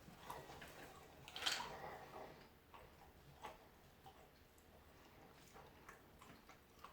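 Roasted peanuts being chewed: faint, irregular crisp crunching clicks, with one louder crunch about a second and a half in.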